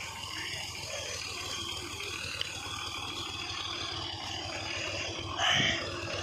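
Tractor engine running steadily, with a brief louder sound about five and a half seconds in.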